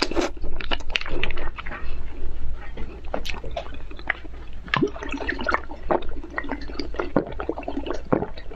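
Close-miked mouth sounds of drinking: sipping and swallowing a liquid from a small glass cup, with many short wet clicks of lips and tongue.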